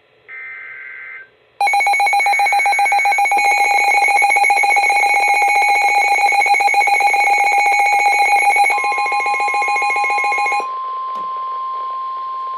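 Emergency Alert System tones. First comes a short buzzing data burst of two alternating tones about a second long. A loud, rapidly pulsing alarm tone follows. Near the ninth second a steady single-pitch weather-radio warning tone joins it, and that tone carries on alone after the pulsed alarm stops a couple of seconds later.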